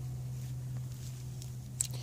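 Steady low hum of the workroom, with faint rustling of gloved hands handling parts and one light click near the end.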